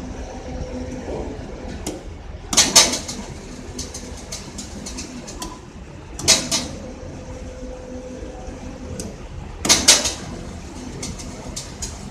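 Belt conveyor running: a steady low hum with three loud clacks about three and a half seconds apart and some light clicks between them.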